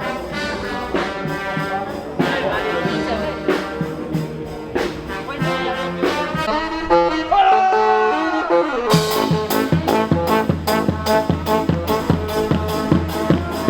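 Brass-led music, trumpets and trombones playing a melody, with a steady drum beat coming in about nine seconds in.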